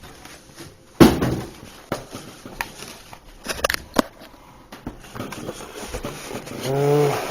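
Handling noises as something is being worked open: a few sharp knocks and clicks, the loudest about a second in, then a short hummed voice sound near the end.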